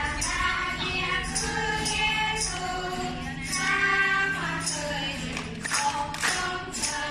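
A praise song: a group of voices singing over backing music, with a jingling tambourine-like beat about twice a second.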